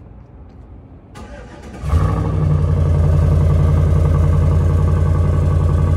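Chevrolet 2500 pickup's engine started by remote start: the starter cranks for under a second, the engine catches about two seconds in, then runs at a steady idle.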